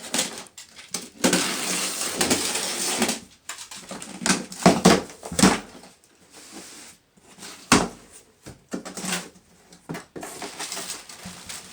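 A cardboard shipping box being opened and unpacked: a long rasping noise of about two seconds, then a series of knocks and rustles of packaging being handled, and one sharp thump about eight seconds in.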